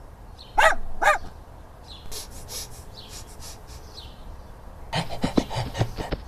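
Animal sound effects: two short, loud pitched yelps about half a second apart, then a series of breathy, panting puffs, then a quick run of light taps near the end.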